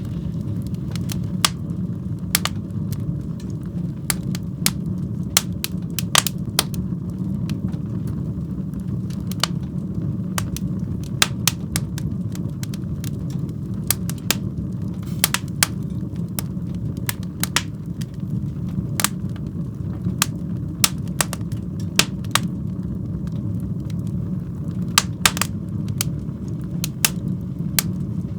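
Fire burning in a fireplace: a steady low rumble of flames with irregular sharp crackles and pops scattered throughout.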